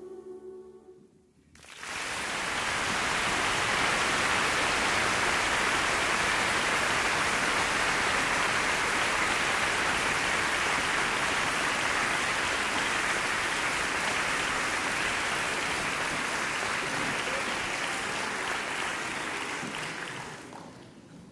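The last sung chord of a children's choir dies away, then audience applause starts about two seconds in, holds steady, and fades out near the end.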